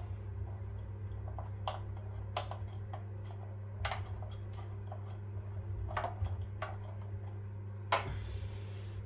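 Light clicks and taps, about half a dozen spread out, the sharpest near the end, as a DRO linear scale is handled and held against a milling machine's metal column. A steady low hum runs underneath.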